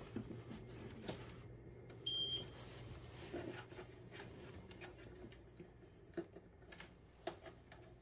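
A single short electronic beep about two seconds in, from the Xiaomi air purifier 4 as it is powered, amid scattered light clicks of handling the sensor and its connector, over a low steady hum.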